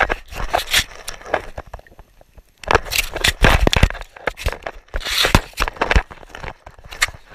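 Snow scraping and crunching against the GoPro housing at very close range, in irregular bursts with sharp crackles. There is a short lull about two seconds in.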